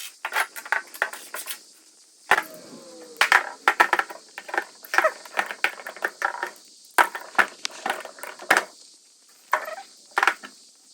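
Metal motorcycle swing-arm and linkage parts clinking and tapping as they are handled and worked apart, a rapid irregular run of small knocks, with one part ringing briefly about two seconds in.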